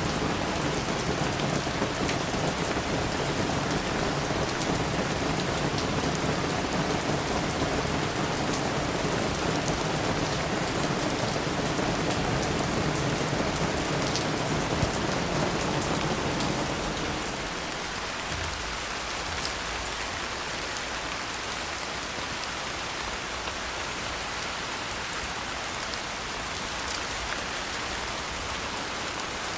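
Steady rain falling, a constant hiss with scattered drop hits. A little past halfway the deeper part of the sound drops away and the rain sounds lighter and thinner.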